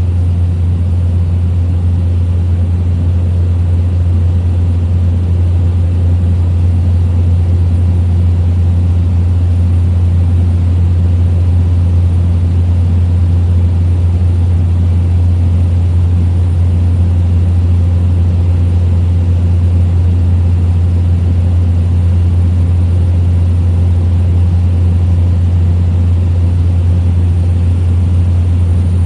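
Small aircraft's piston engine and propeller droning steadily in cruise, heard from inside the cabin: a constant low hum over rushing noise with no change in pitch.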